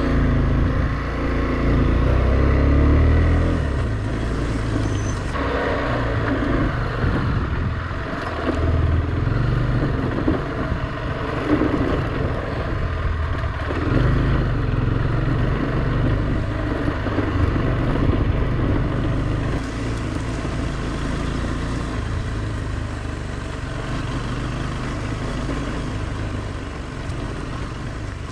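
Motorcycle engine running at low speed on a rough gravel track, its low note rising and falling as the rider works the throttle, over a steady rush of noise.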